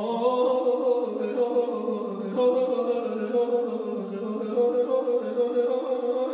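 Persian classical vocal music (avaz): a long note held steady, with a wavering pitched line beneath it.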